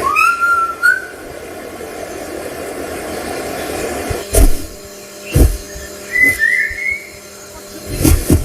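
A bird's whistled calls: a rising whistle at the start and a short warbling call about six seconds in, with a few loud thumps in between.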